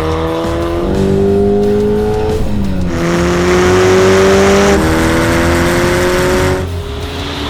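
A car engine accelerating through the gears, its pitch climbing and then dropping back at each shift, over music with a steady beat.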